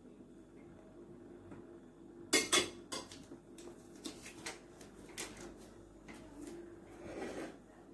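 A metal fork clinking and scraping against a plate, a handful of separate clinks, the loudest two close together about two and a half seconds in.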